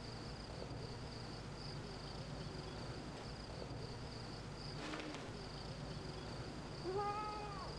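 Crickets chirping steadily in the background over a low hum. Near the end there is a short voice-like sound that rises and then falls in pitch.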